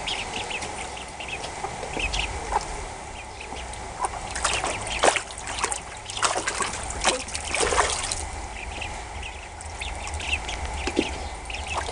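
Young ducklings peeping in many short, high calls, with water trickling and splashing.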